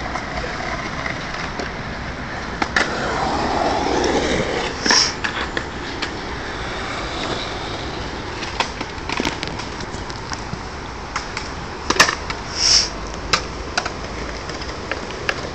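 Skateboard wheels rolling on a concrete bowl, with scattered clacks and knocks of the board, the loudest about twelve seconds in.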